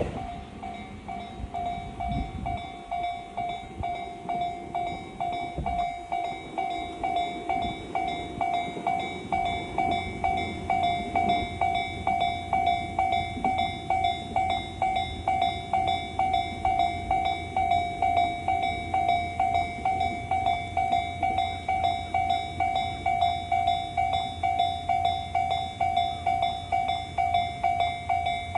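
Japanese level-crossing warning bell ringing in even electronic dings, about two a second, over a low train rumble that swells from about a third of the way in.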